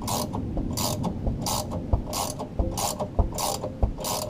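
Hand ratchet turning the screw of a bushing puller in rhythmic strokes, a burst of clicking about every two-thirds of a second with light knocks between, as the worn Muncie tailshaft bushing is drawn out.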